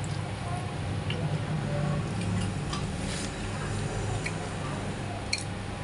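Eating from a plastic bowl with a metal spoon: a few light clicks of the spoon against the bowl and mouth sounds, over a steady low hum.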